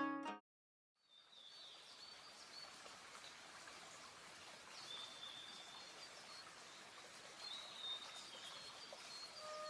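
Plucked-string music cuts off at the very start. After a moment of silence comes a faint outdoor ambience: a soft steady hiss with scattered high bird chirps.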